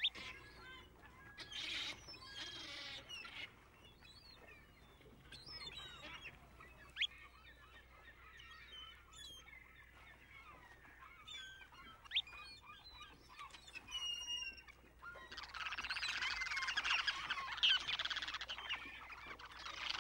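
Shorebirds calling on a tidal mudflat: scattered short, high chirps and whistles, then, about three quarters of the way in, a louder chorus of many birds calling at once.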